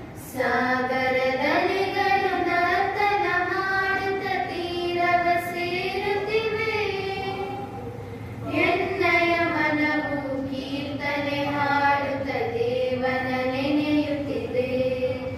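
A group of girls singing a prayer song together through microphones, in slow phrases of long, held notes that glide between pitches, with a short breath break about halfway through.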